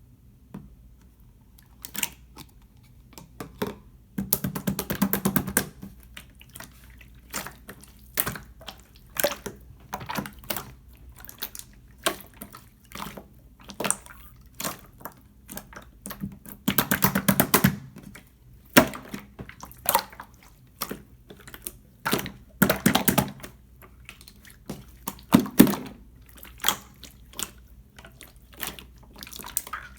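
Clear slime being squished and pressed by hand, giving irregular sticky clicks and popping air bubbles, with denser bursts of crackling three times.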